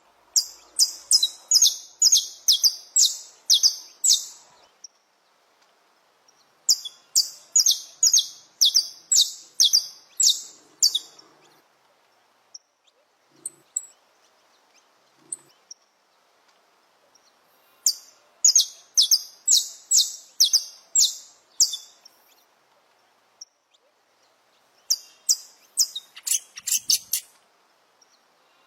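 Saffron finch (canário-da-terra) singing: four bouts of quick, sharp, repeated notes, about three a second, each bout lasting around four seconds with pauses between.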